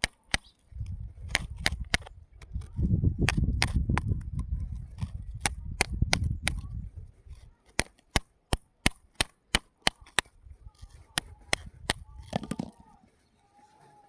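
Thin metal bar digging in wet gravel and sand around a pebble: sharp clicking taps of metal on stone, about two or three a second, over a low scraping rumble for the first half and again briefly near the end.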